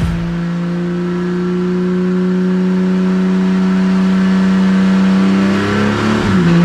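Toyota 60 series LandCruiser engine held at steady raised revs, its pitch falling as the revs drop back near the end.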